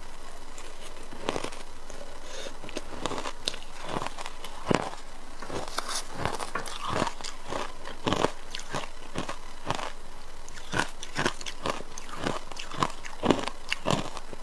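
A person biting and chewing ice, with sharp, irregular crunches every half second or so.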